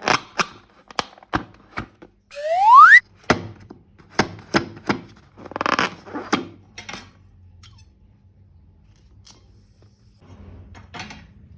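A quick series of sharp clicks or taps, then a loud rising whistle-like squeal lasting under a second. More taps follow, then a short rustling hiss.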